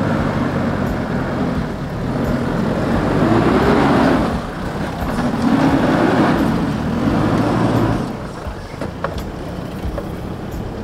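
Isuzu D-Max ute's turbo-diesel engine working through deep sandy ruts, revving up in two swells as the truck climbs and pitches across a washout, then easing off.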